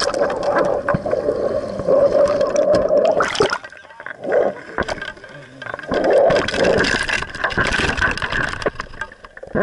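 Water rushing and gurgling past an action camera as it is reeled up through the sea, changing abruptly about three and a half seconds in as it nears the surface, then uneven splashing and sloshing as a hooked nannygai thrashes at the surface beside it.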